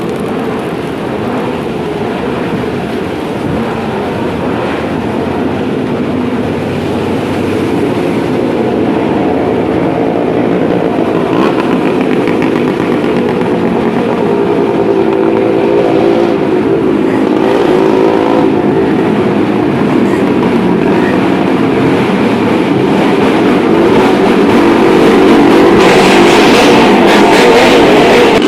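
A motor vehicle engine running close by over heavy rain, the engine growing steadily louder and loudest near the end.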